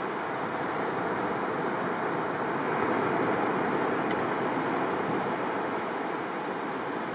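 Surf washing onto a wide sandy beach: a steady rush of breaking waves that swells slightly about three seconds in.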